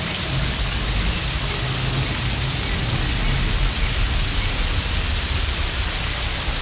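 Rain falling steadily onto a stream, an even hiss with a low rumble underneath.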